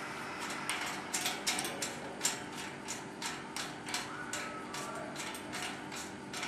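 Wera ratchet's pawl clicking in a quick, slightly uneven series, about three to four clicks a second, as a socket drives a hex bolt.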